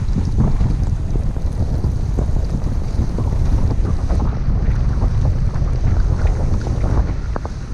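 Wind buffeting the microphone of a camera carried by a skier moving downhill, a loud steady low rumble, with the skis scraping and crackling over the snow.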